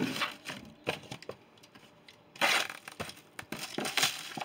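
Packaging of frozen fish boxes being handled: irregular crackling and crinkling, with the loudest rustle about two and a half seconds in.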